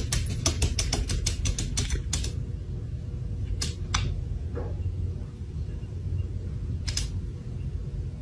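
A cat's claws tapping quickly on a glass door, about five taps a second, stopping about two seconds in, then a few single taps, over a steady low hum.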